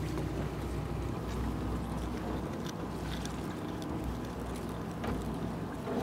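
Steady low rumble of a fishing boat's engine running, with wind and water noise and a few faint ticks.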